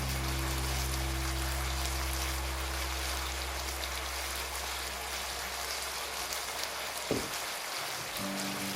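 Chicken wings sizzling and crackling in a frying pan, under background music with held low notes; one short knock about 7 seconds in.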